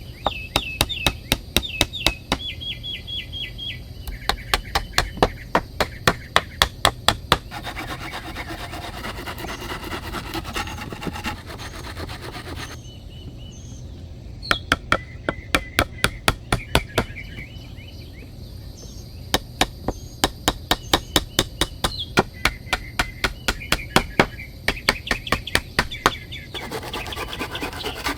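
Hammer strikes on wood in quick runs of about three a second, several runs with pauses between them. Birds chirp in the background.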